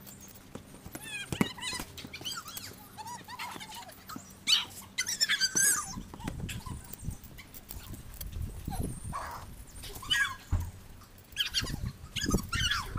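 Short, squeaky high-pitched cries and yelps, pitched up chipmunk-style because the recording is sped up, with a few knocks and a dull thud.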